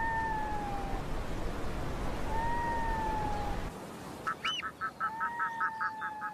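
Red-throated divers calling: three long, slightly falling wails about two and a half seconds apart. About four seconds in, a rapid cackle of short notes (about six a second) starts, along with a couple of higher yelps. A low rush of water runs under the first wails and stops a little past halfway.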